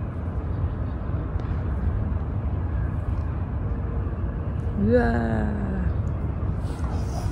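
Steady low background rumble of an open-air setting, with a short voiced exclamation ('uwa') about five seconds in.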